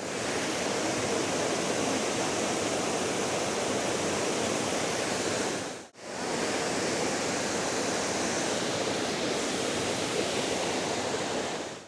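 Waterfall: the steady noise of falling water, dropping out for a moment about halfway through and then coming back at the same level.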